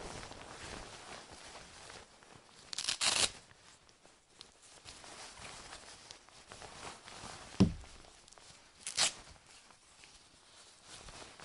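Fabric of winter sports pants rustling and swishing as they move, with two louder swishes about three seconds and nine seconds in. A short, sharp thump comes between them.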